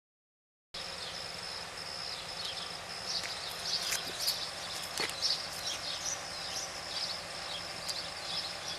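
The sound is cut out completely for the first moment, then outdoor ambience: a steady high insect drone with many short, falling chirps like small birds calling.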